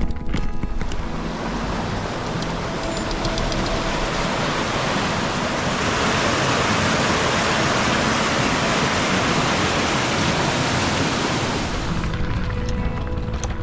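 Water rushing down a weir in a steady, loud, white-water rush that swells up about a second in and fades out a little before the end. Background music sits under it at the start and near the end.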